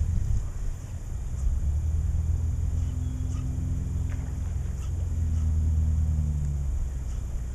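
An engine drones at a low, steady pitch from about a second and a half in, swells a little, then fades out near the end, over low wind rumble.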